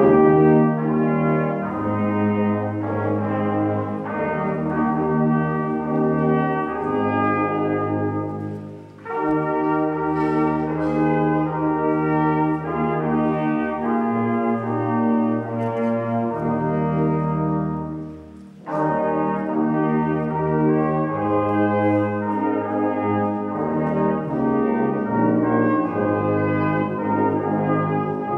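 Brass ensemble of trumpets, horns and tuba playing a slow piece in sustained chords over a moving bass line. It pauses briefly between phrases about a third and two-thirds of the way through.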